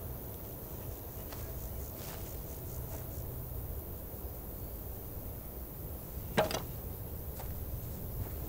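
Outdoor ambience of open dry grassland: a steady low wind rumble with faint scattered rustles and ticks, and one brief louder rustle a little past six seconds in.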